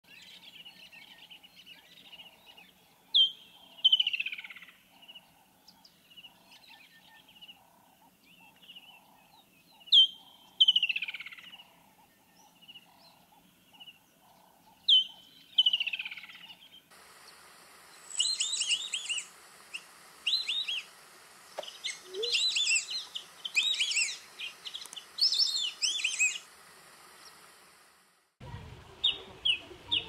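Woodland kingfisher calling three times, each call a sharp high note followed by a long descending trill. Then a run of rapid high chirping notes.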